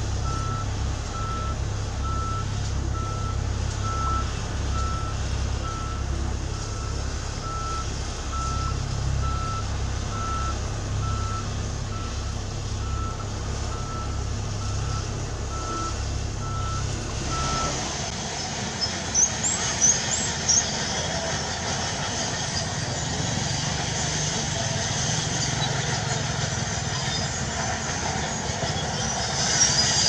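Case single-drum soil compactor backing up: its engine runs with a low pulsing throb while the reverse alarm beeps in a steady, evenly spaced rhythm. A little over halfway through, the beeping and throb stop and a broader heavy-machinery rumble takes over, with a few brief high squeaks.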